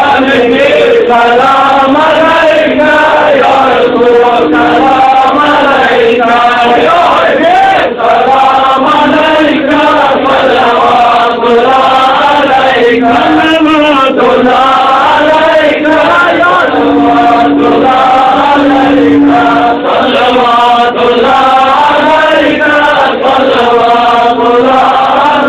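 Male voices chanting a melodic devotional recitation without a break, the pitch rising and falling in long phrases.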